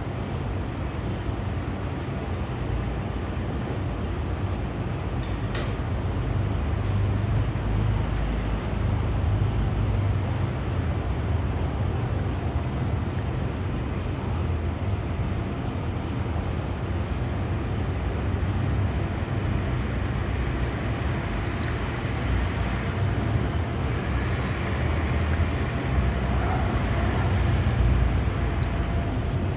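Steady low rumble of city vehicle noise, with a few faint clicks over it.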